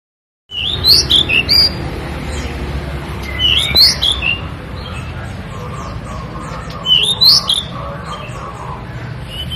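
Pied bushchat (decu) singing: three short song phrases of quick rising and falling notes, about three seconds apart, over a steady low background rumble.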